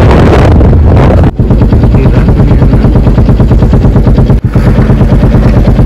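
A boat engine running close by with a rapid, regular thudding beat, loud, with a rush of wind on the microphone in the first second or so.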